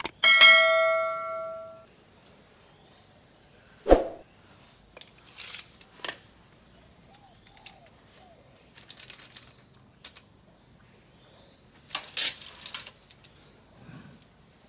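A mouse click, then a bell-like notification ding that rings out and fades over about a second and a half: the sound effect of a subscribe-button animation. After it comes a sharp knock about four seconds in, and scattered short scrapes and rustles of handling at the wall.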